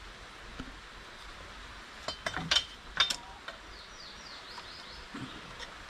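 A few sharp clicks and knocks about two to three seconds in, from kindling and a lighter being handled at a small fire lay, over a steady background hiss. Faint high chirps of a bird come in about four seconds in.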